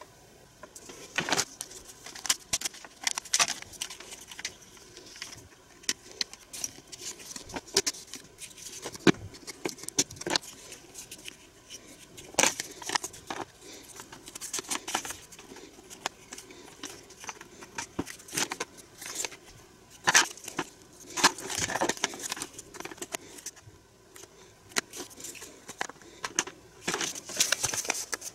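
Hard plastic toy playset pieces clicking and knocking together as they are handled and fitted into place, in irregular sharp clicks.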